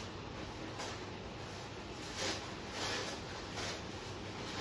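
Plastic packaging and clothing rustling as they are handled, in several short soft rustles a second or so apart.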